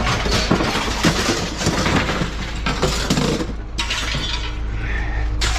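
Thrown household junk crashing and clattering onto a pile, with glass and ceramic knickknacks breaking. The crashing lasts about three and a half seconds and gives way to a softer hiss.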